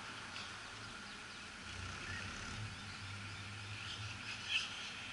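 Car park ambience: a low, steady hum of cars moving slowly, with birds chirping over it. A brief, higher-pitched sound about four and a half seconds in is the loudest moment.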